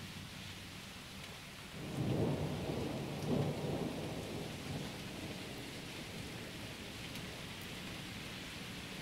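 A rumble of thunder starts about two seconds in, swells twice and dies away over the next few seconds, over steady rain falling.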